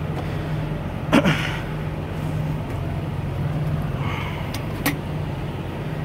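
Diesel truck engine idling with a steady low hum. Two sharp clicks or knocks break through it, about a second in and again near five seconds.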